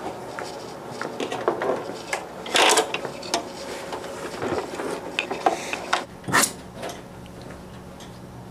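Papers, a folder and a bag being handled and gathered up at an office desk: rustling, light knocks and clatter, with louder rustles about two and a half seconds in and again around six seconds.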